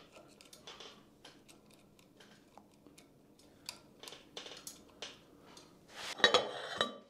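Small metal clicks and light knocks from a hand tool and loose parts in the aluminium end housing of a DC servo motor being taken apart. A louder metallic clatter with a brief ring comes just after six seconds.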